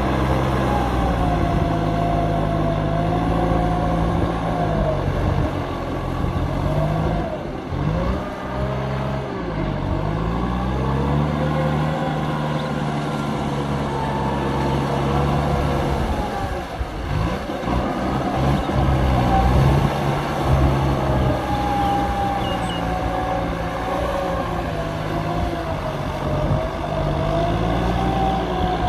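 Kubota M9540 tractor's four-cylinder diesel engine running under working load, its engine speed sagging and picking up again twice, about eight and seventeen seconds in.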